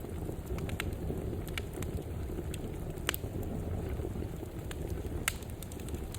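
Wood fire burning with a steady low rumble and scattered sharp crackles and pops, two louder pops about three seconds in and just after five seconds.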